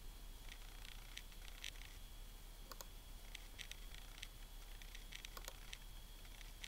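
Faint, irregular clicking from a Macintosh PowerBook 5300cs being operated, with single clicks and short clusters, over a faint steady high whine.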